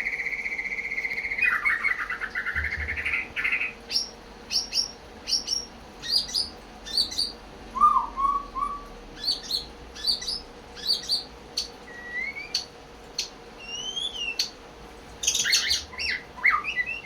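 White-rumped shama singing: a fast buzzy trill for the first few seconds, then a string of short, sharp whistled notes and rising and falling slurs, with a quick burst of notes near the end. The title describes the bird as in high breeding condition (birahi tinggi).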